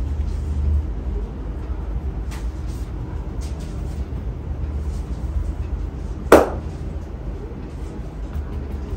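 Barber's hands at work during a head and neck massage: a few faint taps, then one loud, sharp smack a little past six seconds in, over a steady low rumble of background traffic.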